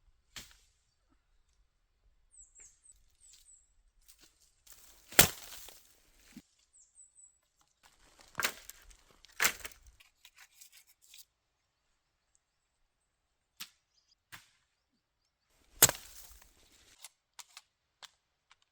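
Wood being struck hard during shelter building: four sharp knocks at uneven intervals, the loudest about five seconds in and another near sixteen seconds, with smaller ticks and cracks between. A small bird chirps faintly a few times about two to three seconds in.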